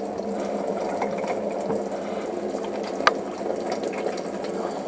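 Tap water running over hands into a stainless steel sink during handwashing, a steady rush of water, with one sharp click about three seconds in.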